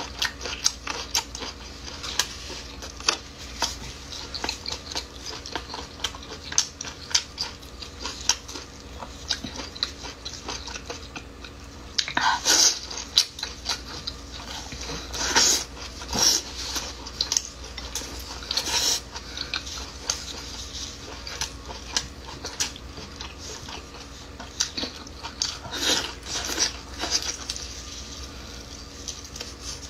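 Close-up mouth sounds of someone eating braised lamb intestines: biting and chewing with many small wet clicks and smacks, broken by a few louder, brief bursts of noise in the middle and toward the end.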